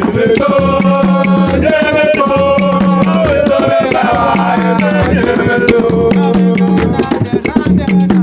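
Background music with a steady drum beat, a pulsing bass line and a melody over it.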